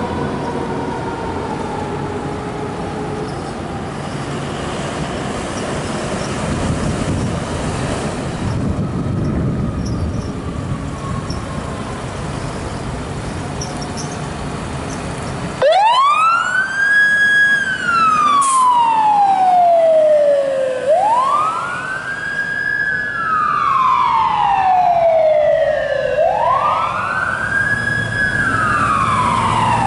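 Fire rescue truck pulling out with a siren tone slowly winding down over a heavy truck-engine rumble. About halfway through, the sound changes abruptly to an electronic wail siren. The wail rises quickly, holds for a moment, then falls slowly, repeating about every five seconds.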